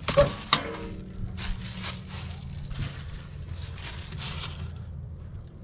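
Footsteps crunching on gravel, about two a second, stopping shortly before the end, over a steady low engine hum.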